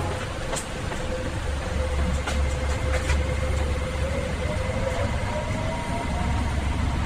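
Train running: a steady low rumble, with a faint whine that slowly rises in pitch over the last few seconds and a few light clicks in the first three seconds.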